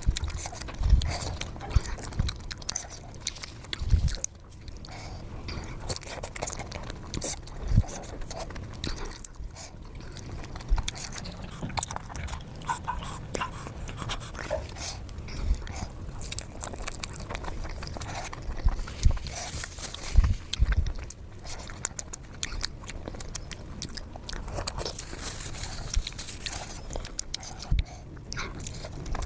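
A person biting and chewing steamed momos close to the microphone, with irregular mouth clicks and smacks.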